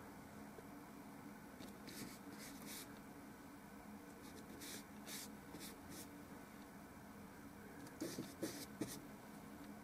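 Faint scratchy strokes of a paintbrush dabbing and dragging oil paint across a small painting panel, coming in short groups of two or three swipes, the loudest group near the end. A faint steady low hum lies underneath.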